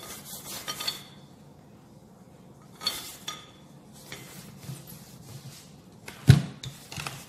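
Scattered knocks and light clatter of a rolling pin and utensils on a pastry board as pizza dough is pressed and rolled out, with one sharp knock near the end.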